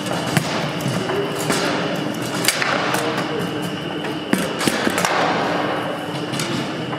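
Foosball being played: the ball and the metal-rodded player figures give a string of sharp, irregular knocks as shots are struck and blocked, the loudest about two and a half seconds in and again a little past four seconds.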